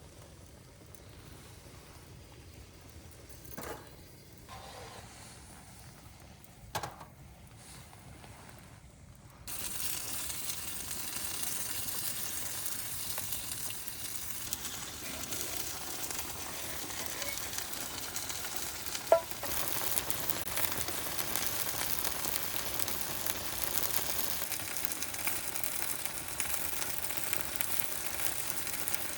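Dak-galbi sizzling in a hot pan over a wood fire. Quiet with a couple of short knocks at first, then the sizzling starts abruptly about nine seconds in and grows louder around twenty seconds in, with one sharp click just before that.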